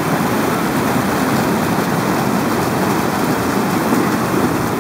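Loud, steady rush of white water churning below a river weir.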